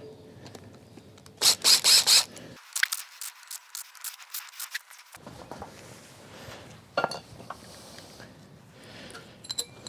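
An impact driver rattling in several short bursts as it undoes the cover-plate screws on a Subaru EJ20 engine block, followed by small metal clicks and clinks of the loosened screws and parts.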